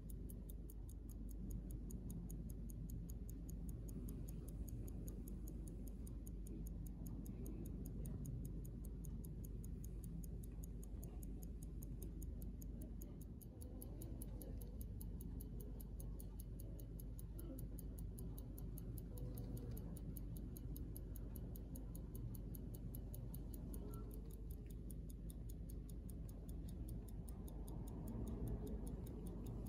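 Georges Favre-Jacot (Zenith) Diogène pocket watch ticking in a fast, even rhythm from its 15-jewel lever escapement, with a low background rumble.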